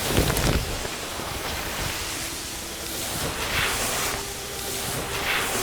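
Sound-designed whooshing noise, like rushing wind, with a low rumble at the start and two swelling whooshes later on; a faint held tone creeps in underneath.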